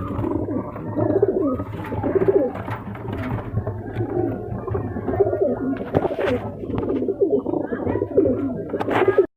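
Many pigeons cooing over one another in a loft, a steady dense chorus of low warbling coos. It cuts off suddenly near the end.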